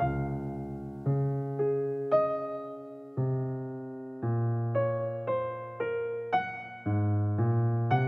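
Background music: a piano playing slow notes and chords, each struck and then fading.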